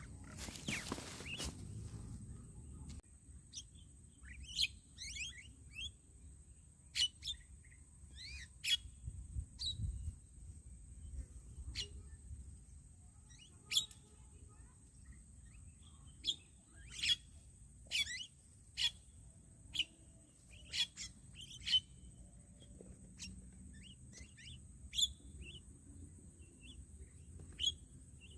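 Birds calling: a string of short, sharp chirps every second or so, over a steady high-pitched tone. A brief noisy burst comes at the start.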